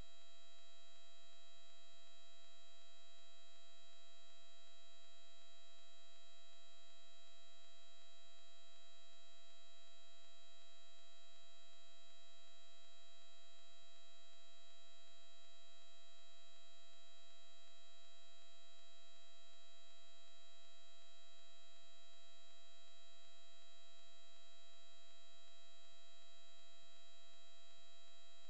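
Steady electrical hum and whine made of several fixed tones, unchanging throughout, with no crash or impact sounds.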